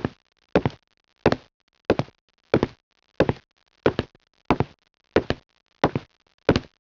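A steady series of heavy thuds, about three every two seconds, each a quick double hit, with dead silence between them.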